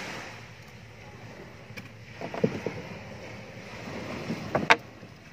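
Steady sea and wind noise on the microphone, broken by a few short, sharp clattering sounds about two seconds in and again near the end.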